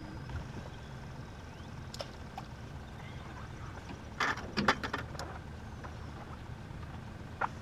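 Knocks and clatter from people moving about in an aluminium fishing boat: a quick cluster of sharp knocks about four and a half seconds in and a single knock near the end, over a steady low rumble.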